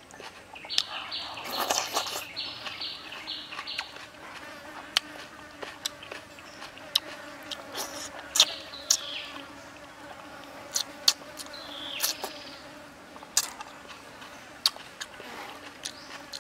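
Close-up eating sounds: chewing fried frog meat, with many short sharp clicks and smacks at an uneven pace. A faint steady buzzing hum runs underneath.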